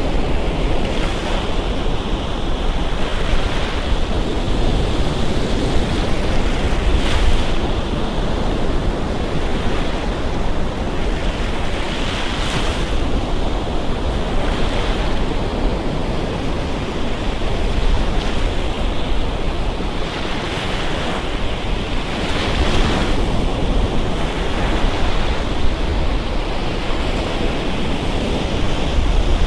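Surf breaking and washing up a Gulf Coast beach, a continuous rushing with a brighter swell every few seconds as each wave breaks, over a low rumble of wind on the microphone.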